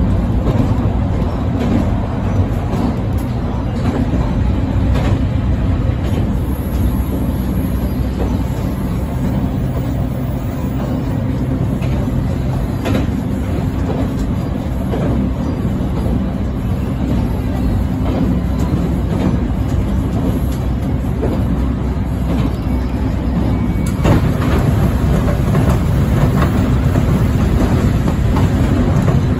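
JR Kyushu electric train running along the track, heard from inside behind the driver's cab: a steady rumble with scattered clicks from the wheels on the rails.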